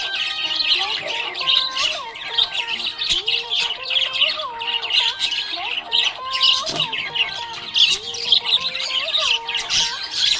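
Budgerigars chirping and squawking in a dense, unbroken chatter.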